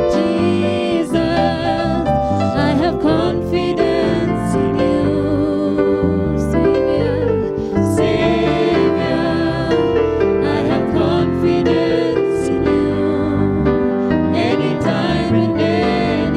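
A gospel worship song: a woman and a man singing into microphones over keyboard accompaniment, their held notes wavering with vibrato.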